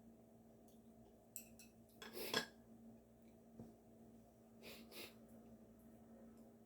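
Quiet tabletop handling sounds: a few light clicks and two short rustling, breathy noises, the louder one about two seconds in and the other about five seconds in, over a steady low electrical hum.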